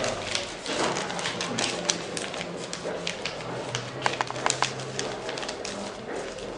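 Foil tops of brick-shaped packets being torn and crinkled open by hand: a rapid, irregular run of sharp crackles and clicks, thickest about four to five seconds in.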